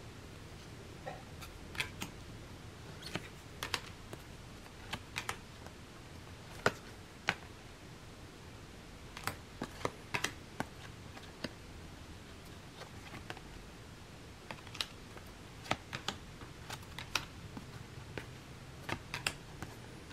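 Thick cardstock tarot cards being flipped through and dealt one at a time: irregular light clicks and snaps as cards slide off the stack and tap against each other, about one or two a second, some in quick pairs.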